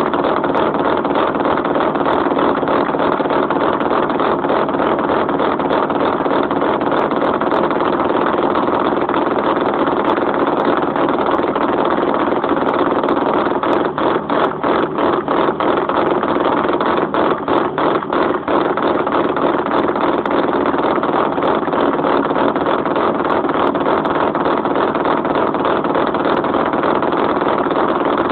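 Exhaust of a cross-ported 13B two-rotor rotary engine in an SA22C RX-7, running steadily without revving, with a few seconds of choppy dips in level around the middle. It stays loud even with an inner silencer fitted in the exhaust.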